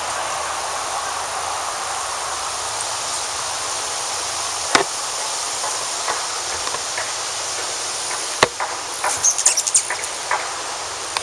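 Steady hiss of road traffic, with a quick run of high, sharp chip calls from a rufous hummingbird about nine seconds in; a couple of sharp clicks come before them.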